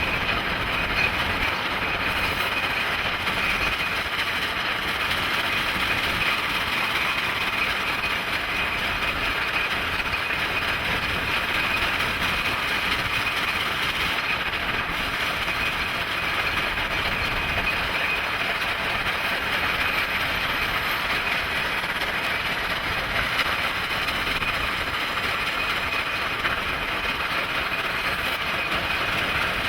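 Southern Pacific 4449, a 4-8-4 steam locomotive, and its train running at speed: a steady, unbroken rumble and hiss with rail noise that holds level throughout.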